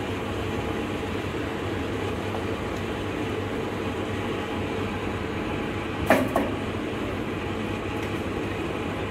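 A steady machine hum and rumble, with a sharp double clack about six seconds in.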